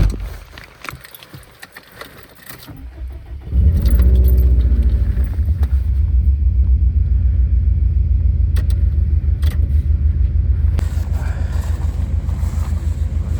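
Keys jangling and small clicks, then about three and a half seconds in a Subaru WRX's turbocharged flat-four engine starts, flares up briefly and settles into a steady, pulsing idle.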